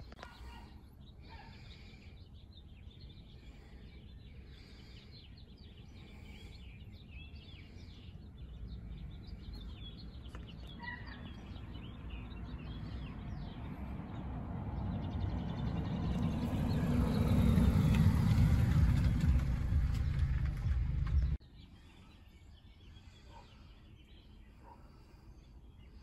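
Small birds chirping faintly, while a low rumbling noise swells over about ten seconds until it drowns them out, then cuts off suddenly about 21 seconds in. Quieter chirping follows the cut.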